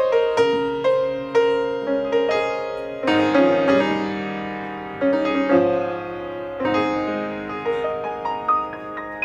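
Grand piano playing alone: slow chords and single notes are struck and left to ring, a new one every half second to a second.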